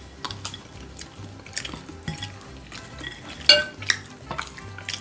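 Chopsticks and a spoon tapping and scraping against glass and ceramic bowls: scattered light clinks, with one louder ringing clink about three and a half seconds in.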